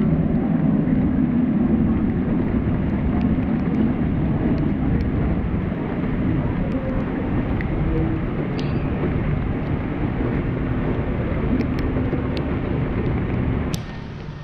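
Heavy rain with a steady low rumble, scattered sharp ticks of drops striking the camera, and a sudden drop in level near the end.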